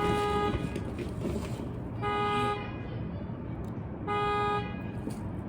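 Vehicle horn honking three times at a steady pace, each honk about half a second long and about two seconds apart, the kind of regular pattern a sounding car alarm makes.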